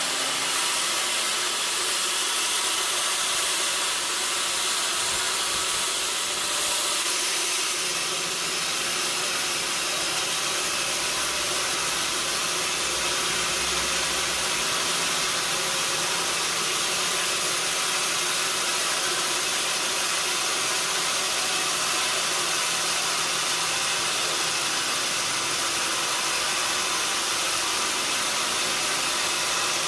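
Sawmill saw running steadily, a continuous high hissing whir that holds at one level throughout.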